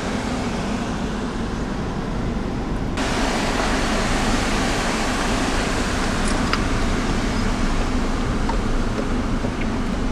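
Car driving on a gravel mountain road: steady engine and road noise, with a hiss that gets suddenly brighter about three seconds in.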